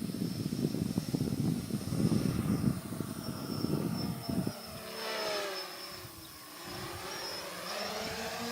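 Small quadcopter's brushless motors and propellers whining in flight, the pitch gliding up and down with the throttle in the second half. Wind rumbles on the microphone in the first half.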